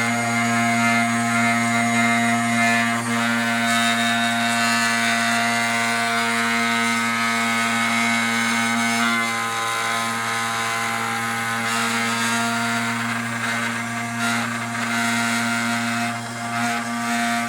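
CNC router table cutting a pattern into a workpiece: the VFD-driven spindle runs at a steady pitch while the machine moves the bit along its tool path.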